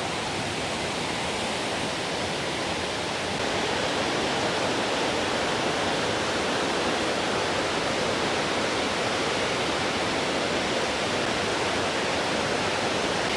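Steady rush of a large waterfall in the rainy season, growing a little louder about three and a half seconds in.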